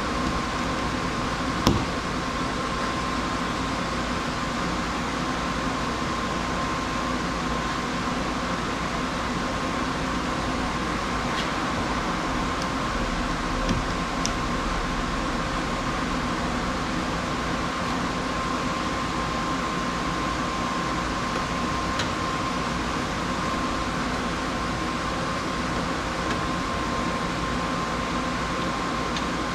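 Steady mechanical hum like a running fan or air conditioner, with a high steady tone through it. A few sharp clicks stand out, the loudest about two seconds in and smaller ones around fourteen and twenty-two seconds in.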